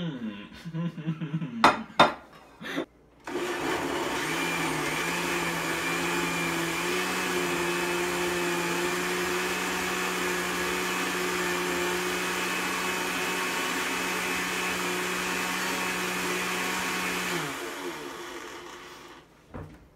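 A few clinks and knocks as food is tipped off a plate into a glass blender jar, then a countertop blender motor starts and runs steadily for about fourteen seconds, puréeing a thick mix of leftovers, before winding down with a falling pitch.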